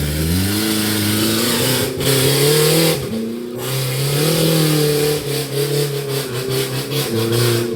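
Off-road 4x4's engine revving up and down repeatedly under load, dropping back briefly near the middle, with a fast rattling over the last couple of seconds.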